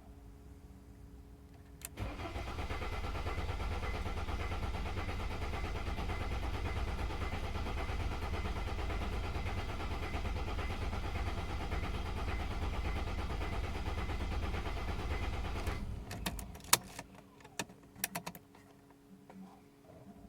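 Mercedes ML 270 CDI's five-cylinder diesel engine being cranked over by the starter for about fourteen seconds at an even speed without catching: a no-start. It stops, then several sharp clicks follow.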